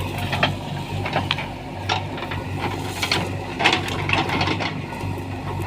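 Diesel engine of a JCB 3DX backhoe loader running steadily, with irregular clanks and knocks from the working machine.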